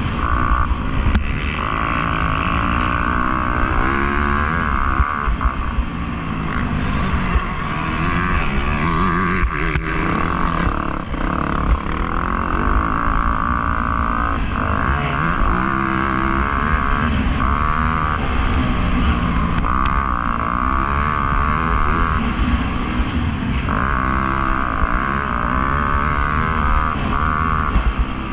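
Motocross bike engine racing, revved hard and backed off again and again, its pitch rising and falling every second or two.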